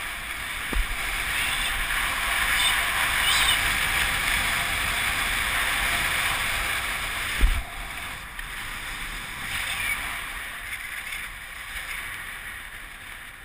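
Skis hissing over snow with wind rushing over a helmet-mounted camera during a downhill run, with a low thump about a second in and a louder one about seven and a half seconds in. The noise fades toward the end as the skier slows near the bottom of the run.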